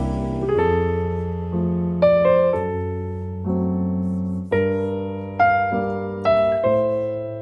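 Background music: a slow piano melody with notes struck about once a second and left to fade, over a held bass note.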